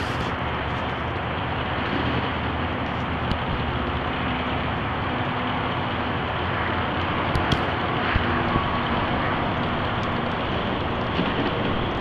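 Steady outdoor urban background noise with a traffic-like rumble, a faint steady hum and a couple of light clicks.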